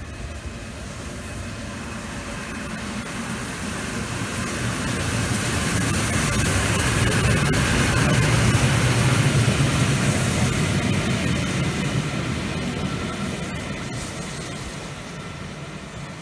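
LNER Peppercorn A1 Pacific steam locomotive 60163 'Tornado' and its support coach passing through on the main line. The sound grows steadily louder to a peak as it goes by, about eight to ten seconds in, then fades away.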